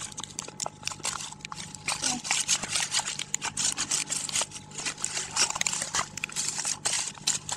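Sealed plastic film pouch of dry pet food crinkling and rustling irregularly as it is handled, over a low steady hum.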